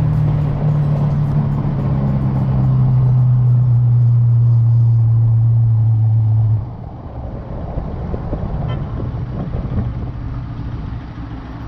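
Motorcycle engine droning steadily at cruising speed over wind and road noise. About six and a half seconds in, the engine drone cuts off abruptly, leaving rough wind and road noise.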